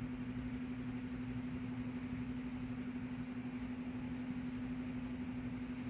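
Steady low machine hum with one constant tone under a faint hiss, unchanging throughout.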